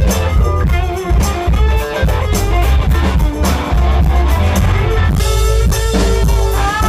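Live southern rock band playing loud: an electric guitar lead over drums and bass.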